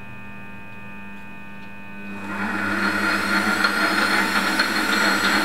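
Bernardo Profi 400 V bench lathe running, a steady whine from its motor and change-gear train. About two seconds in the speed is turned up, and the running grows louder and rises in pitch. The gears, refitted with nylon-insert lock nuts, run quietly and smoothly.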